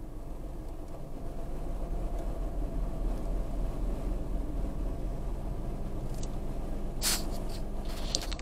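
Steady low rumble of a car's engine and surrounding traffic heard from inside the cabin, growing a little louder after a second or so. A brief rustling click comes about seven seconds in.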